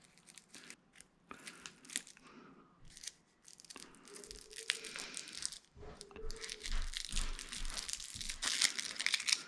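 Scratchy crinkling and rustling of a Cat 6 cable's plastic-insulated wires being handled and separated by hand, irregular, growing louder about halfway through.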